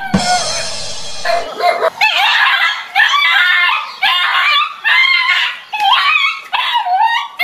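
Dog barking and yelping in a string of short, high-pitched calls, one after another, as it goes at a stuffed toy tiger. A burst of rustling, scuffling noise comes in the first second or so.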